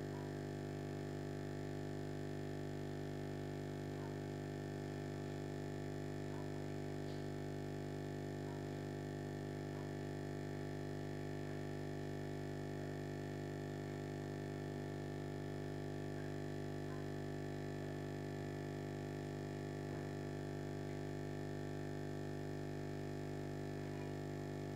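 Steady low hum of the aquarium's air pump, made of several fixed tones with no change, with a few faint soft ticks now and then.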